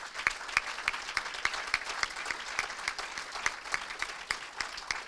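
Audience applauding, with one set of close hands standing out at about three claps a second; the applause thins out near the end.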